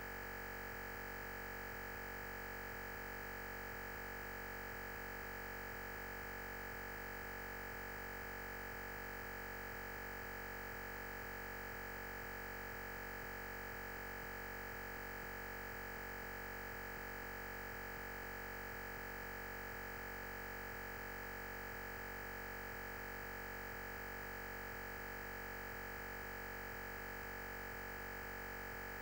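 Steady electronic hiss and hum with a constant high-pitched tone, unchanging throughout, with no speech audible: recording-chain noise in place of the lecture's sound.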